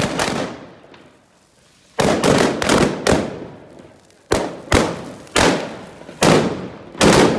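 Firecrackers exploding in a bonfire: a sharp bang at the start, a short lull, then about ten bangs in quick, uneven succession, each trailing off.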